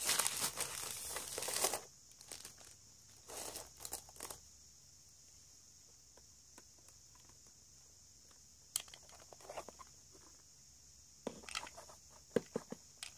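Hands handling crafting materials: crinkling and tearing sounds for the first couple of seconds and again briefly a little later, then scattered light taps and clicks near the end.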